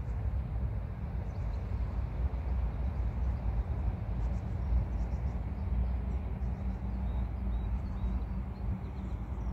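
Wind buffeting the microphone outdoors: a low, gusty rumble that rises and falls without pause.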